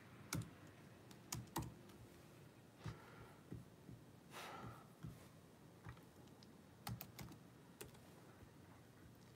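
Faint, irregular keystrokes and clicks on a computer keyboard, a few at a time with pauses in between.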